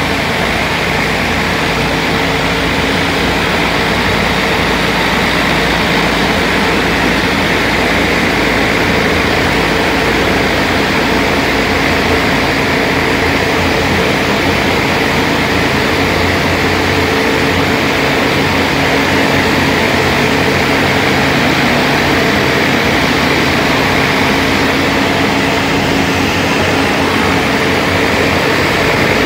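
Rotary surface cleaner on a pressure washer, spinning water jets over concrete: a loud, steady hiss of spray with the even drone of the pressure washer's engine and pump underneath.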